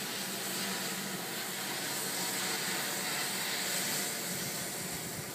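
Pressure washer spraying water through a surface cleaner onto concrete: a steady hiss.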